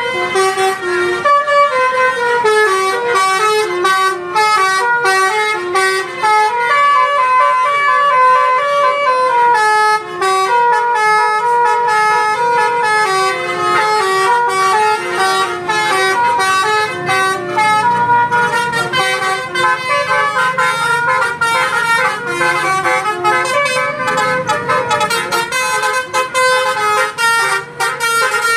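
Basuri telolet horn playing a tune: a continuous run of short stepped notes rising and falling, with several tones sounding together.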